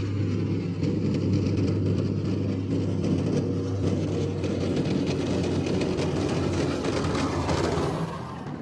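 M270 MLRS tracked launcher driving past on a gravel track: its Cummins diesel engine running steadily under the clatter of the tracks. The sound drops away about eight seconds in as the vehicle passes.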